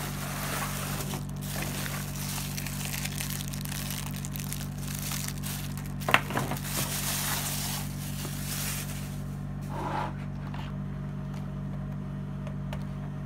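Plastic packaging crinkling and rustling as a ring light is pulled out of its box, with a sharp knock about six seconds in. The crinkling dies down after about nine seconds, leaving lighter handling over a steady low hum.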